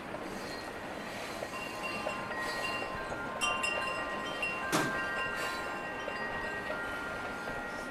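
Wind chimes ringing, several pitches sounding and overlapping, with one sharp strike about halfway through. Underneath is the steady rolling rumble of freight cars passing.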